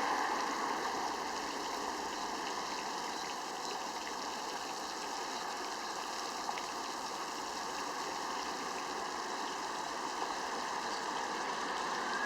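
Fountain water falling and splashing steadily into its basin.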